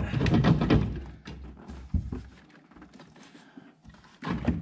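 Handling noise of hands working parts and wiring loose in a truck's engine bay: a run of clicks, knocks and rustling, one sharp knock about two seconds in, a quieter stretch, then more handling noise near the end.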